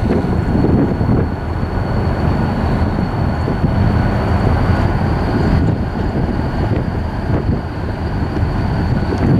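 Train approaching along the track: a steady low rumble, with a thin, steady high whine above it.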